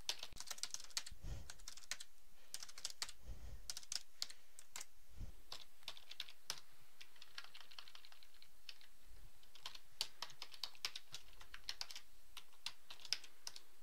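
Typing on a computer keyboard: irregular runs of keystrokes broken by short pauses.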